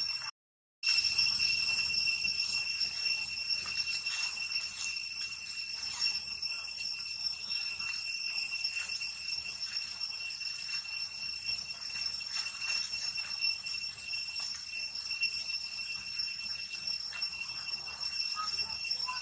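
Steady, high-pitched, shrill insect chorus, cutting out completely for about half a second just after the start.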